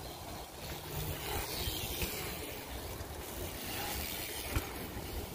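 Steady rushing noise with an uneven low rumble, the sound of wind on the camera microphone.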